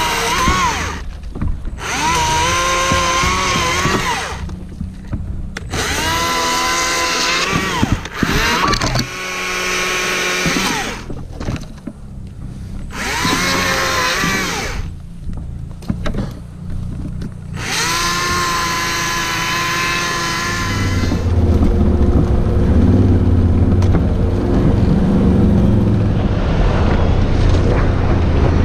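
Chainsaw cutting through a fallen tree trunk in repeated full-throttle bursts, its pitch sagging and rising under load, with short breaks between cuts. After about 20 seconds it gives way to a quad bike's engine running steadily as it rides.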